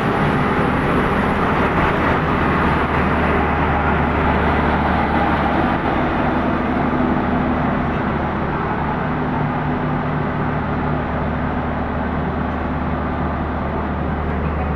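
Passenger train at a station: a diesel locomotive engine running steadily with a low hum under a broad rumble of train noise.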